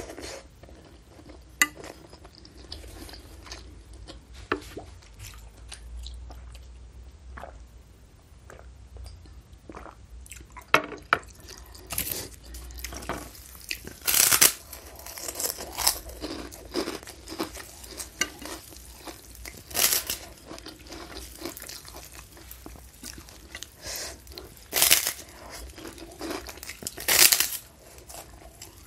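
Close-miked eating: a person chewing, then biting into crisp white kerupuk crackers, giving several loud, sharp crunches from about twelve seconds in among quieter chewing.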